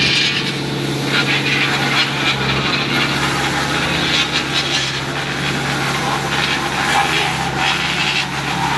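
Construction machinery engine running steadily: a constant low hum with rough noise and irregular clatter over it.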